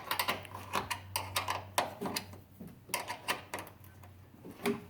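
Quick, uneven metallic clicks of a 7 mm end wrench working the headlight's mounting bolts loose, several clicks a second.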